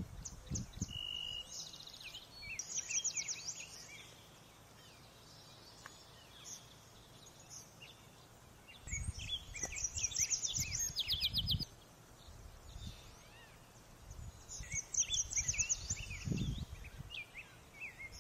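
Outdoor ambience of small birds chirping and singing, with fast trills a few seconds in, around the middle and again near the end. Spells of low rumble come and go underneath, loudest about halfway through.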